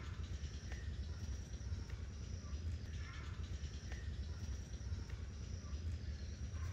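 Rural outdoor ambience: insects with a thin high steady tone that comes and goes, and short bird chirps now and then, over a low steady rumble.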